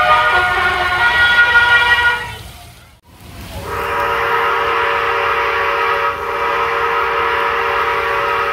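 Splash-park water tower's warning sound cues, the sounds it makes before it dumps its water: a steady, horn-like chord of several tones that fades out about two and a half seconds in, then, after a sudden break, a lower steady chord of tones.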